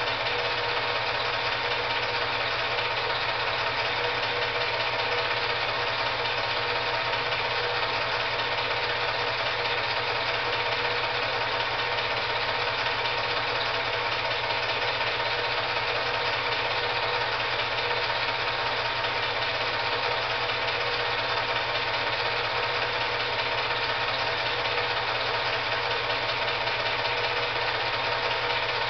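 8mm film projector running: a steady mechanical whir with a rapid, even clatter of the film advancing and a constant hum, unchanging throughout.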